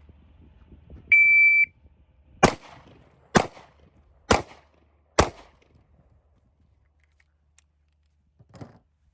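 Shot timer's start beep, a steady high tone of about half a second, followed by four shots from a Glock 27 .40 S&W subcompact pistol, evenly spaced about a second apart.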